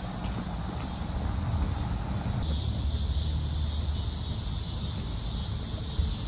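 Insects chirring steadily in a dense high-pitched chorus, which grows louder about two and a half seconds in, over a low steady rumble.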